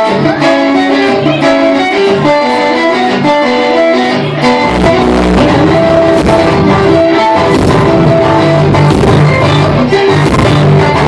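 Live amplified duo music: a picked melody on a guitar-bass hybrid and a modified baritone ukulele. About four and a half seconds in, a heavy low bass part joins and fills out the sound.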